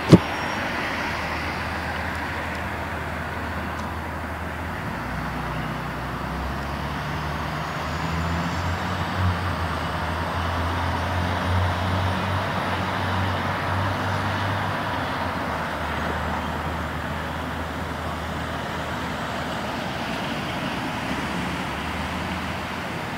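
Road traffic noise with the low hum of a heavy vehicle's engine, swelling from about five seconds in and easing off after about fifteen seconds. A sharp click comes right at the start.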